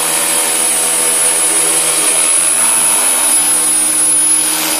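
Electric ALZRC Devil 420 RC helicopter flying inverted close to the ground: a loud, steady whine of motor, gears and spinning rotor blades, holding one pitch throughout.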